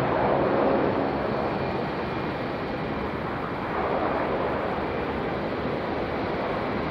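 Airbus A350-900 airliner landing, its Rolls-Royce Trent XWB jet engines a distant steady rush, mixed with wind noise on the microphone. A little louder in the first second.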